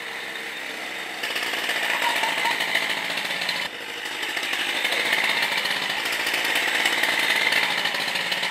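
Small motor-scooter engine running with a rapid buzz as it is ridden around, dropping suddenly a few seconds in and then building again as it comes closer.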